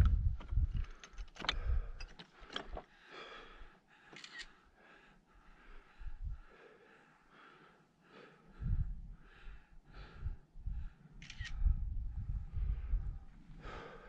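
Wind buffeting the camera's microphone in gusts, with a few faint clicks and handling scuffs in between.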